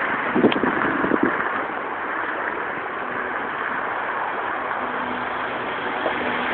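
Steady rushing hiss with a few faint clicks in the first second.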